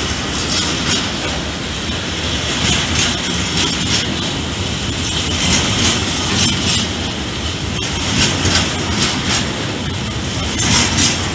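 Freight train of covered hopper wagons rolling past, a steady rumble of wheels on rail with clicks recurring throughout.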